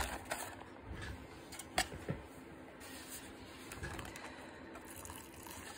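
Faint handling of a zip-top plastic bag of cement being mixed with water: soft rustling, with a couple of light clicks about two seconds in.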